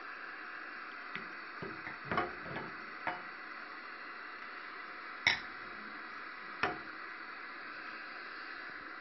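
Steady static hiss from a 1977 National FH-12PR transistor TV's speaker. A few scattered clicks and knocks fall within the first three seconds, and two sharper clicks come later.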